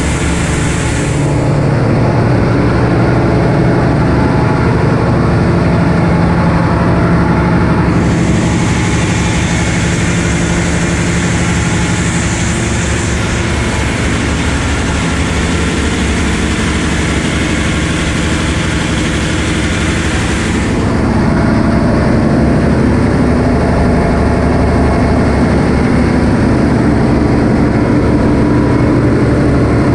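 Loud, steady drone of running diesel machinery in a ship's engine room. The hiss above it changes in strength about a second in, again about eight seconds in, and near twenty-one seconds.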